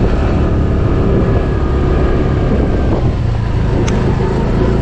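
TVS Jupiter 125cc scooter's single-cylinder engine running while riding over a broken stretch of road, with wind buffeting the chest-mounted action-camera microphone. A single sharp click about four seconds in.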